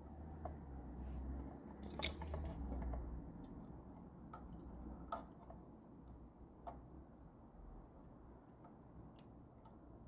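Hands zip-tying a sensor cable on an exercise bike frame: faint scattered clicks and snaps, with one sharper snap about two seconds in.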